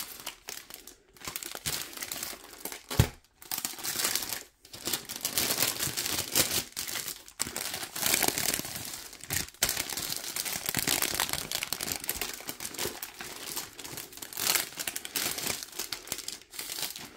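Clear plastic sleeve crinkling and rustling as hands work a paper-wrapped rolled canvas out of it, in irregular handling bursts. There is a single sharp knock about three seconds in.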